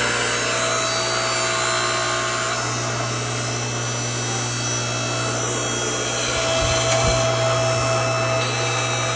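Wen Lumberjack 6.5-ton electric log splitter's electric motor and hydraulic pump running steadily with a strong hum, switched on through the newly rewired foot pedal; it cuts off near the end.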